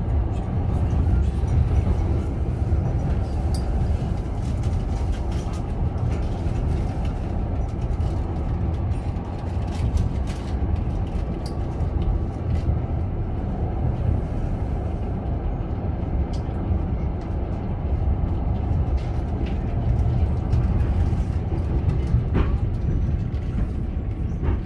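Passenger train running across a steel truss bridge, heard from inside the carriage: a steady low rumble with scattered clicks and rattles.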